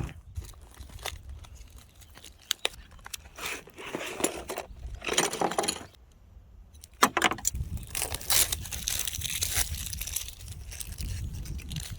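Handling noises: rustling and scraping in bursts, with scattered small clicks.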